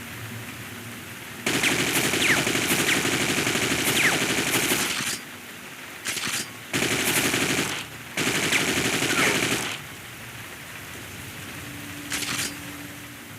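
AK-47 automatic rifle fire sound effect: a long burst of about four seconds, then three shorter bursts in quick succession, and one brief burst near the end, with a steady hiss between them.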